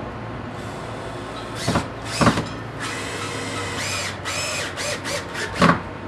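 Power drill driving a hinge screw into a door jamb: a run of short bursts with the motor whining up and down, the bursts growing shorter and quicker near the end as the screw seats. A few sharp knocks come in between.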